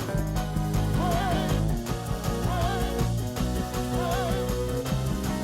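Church band playing an upbeat praise-break groove: held bass notes, steady drum strokes and a short wavering melodic phrase that comes back about every second and a half.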